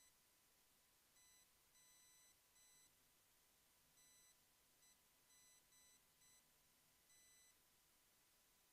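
Near silence, with very faint, irregular high-pitched electronic beeps of varying length, some short and some about half a second long, over a low hiss.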